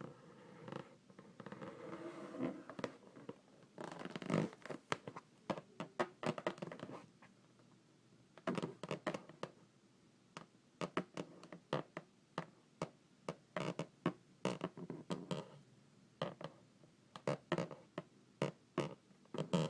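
An inflated rubber balloon rubbed by hand, squeaking for the first few seconds. Then fingernails tap and scratch on its surface in many short, irregular strokes.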